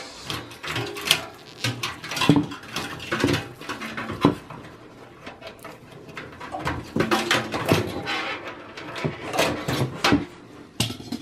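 Irregular clicks, taps and scrapes as gloved hands pry at plastic retaining clips and handle parts against the sheet-steel chassis of a Dell XPS 8900 desktop during disassembly.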